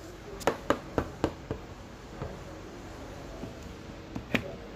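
A series of light taps and knocks of a plastic toy pony figure and toy house pieces against a wooden tabletop: about five quick taps in the first second and a half, then a couple more, one near the end.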